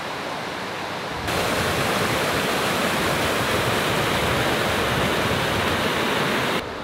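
Small waterfall pouring over rock: a steady rush of water that gets louder just over a second in and drops back shortly before the end.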